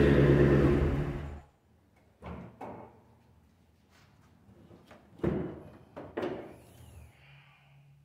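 Mercury Grand Marquis 4.6 L V8 running rough because it is down a cylinder from a misfire, dying away about a second and a half in. A few sharp clunks and knocks follow as the hood is unlatched and raised.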